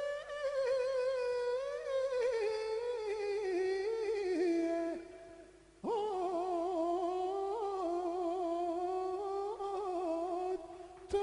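A person humming a slow, wavering melody in long held notes that slide between pitches. It breaks off for under a second about halfway through, then comes back in.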